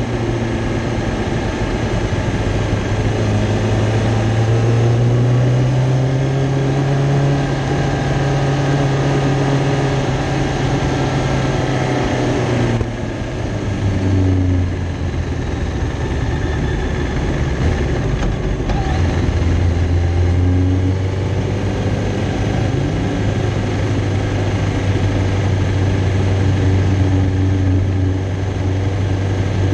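Kawasaki Ninja ZX-10R inline-four engine running at low revs in second gear as the bike rolls slowly along, with wind noise on the screen. About 13 seconds in the throttle is closed and the revs drop, and the engine then runs on at a lower, steady pitch.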